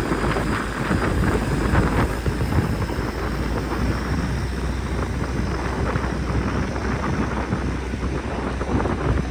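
Strong wind buffeting the microphone: a steady rushing noise with a deep low rumble.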